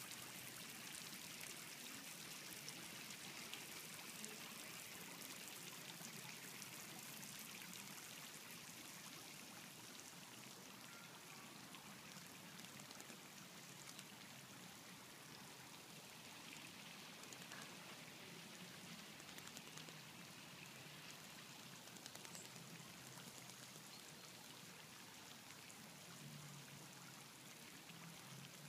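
Faint steady splashing and hiss of a small pond fountain's spray falling back into the water.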